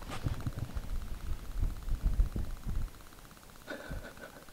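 Uneven low rumble and thumps inside a Ford pickup's cab, with a faint steady buzz; it settles quieter about three seconds in.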